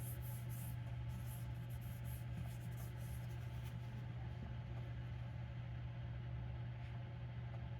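A jackknife blade scraping in light, quick back-and-forth strokes on an oiled soft Arkansas whetstone, stopping about halfway through. A steady low hum runs underneath.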